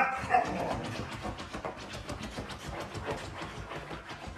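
A husky digging at a fabric sofa cushion with its front paws: rapid scratching and rustling, loudest at the start and then lower.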